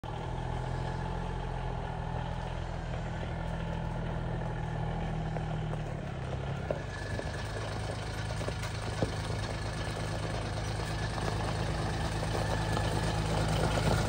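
John Deere Gator utility vehicle's engine running steadily, its note changing about seven seconds in as it pulls off. It gets louder as it comes closer, with tyres crunching over gravel and a couple of sharp stone ticks.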